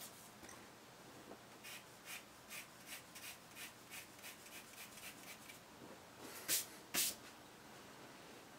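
2H graphite pencil making short, light strokes on sketchbook paper to draw in fabric fibres, a quick scratch two or three times a second, followed by two louder strokes near the end.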